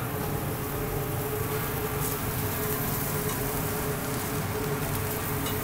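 Steady mechanical hum with one constant tone, with a few faint clicks of metal tongs turning broccoli on a barbecue grill grate.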